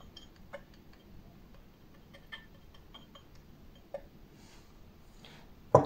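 Faint, irregular light taps and ticks of a small metal pick pressing tape down onto the odometer number wheels of a classic Ford F-series speedometer, with a sharper click near the end.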